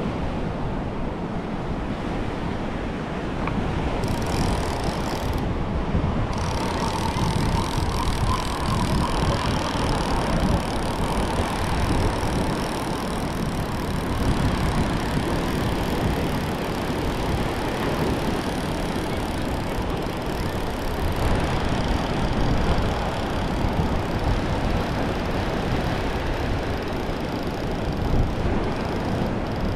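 Ocean surf washing up a sandy beach, with wind buffeting the microphone in a steady low rumble.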